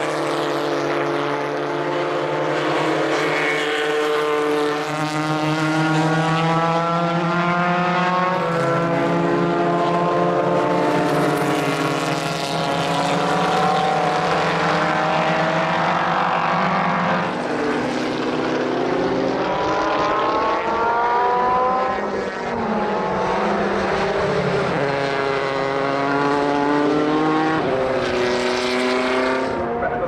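Engines of a pack of historic single-seater racing cars at full throttle, several engine notes overlapping, their revs climbing and dropping repeatedly as the cars accelerate past.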